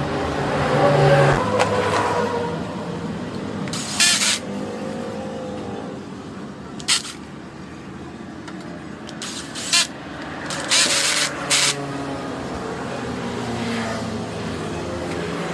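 Street traffic: a motor vehicle's engine running close by at first, then fading into a steady traffic hum, with several short, sharp hissing bursts over it.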